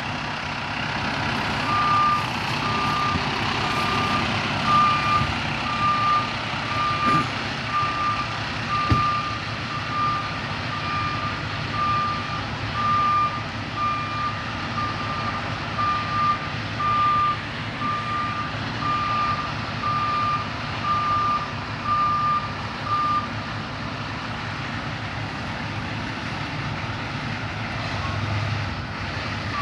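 Heavy truck's reversing alarm beeping about once a second over a steady low engine rumble; the beeping stops about 23 seconds in while the rumble goes on.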